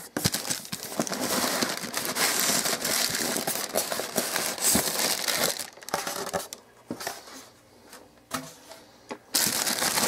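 Thin plastic wrapping around a new TV crinkling and rustling as it is handled in its cardboard box. The rustling dies down to a few scattered clicks for about three seconds, then starts again near the end.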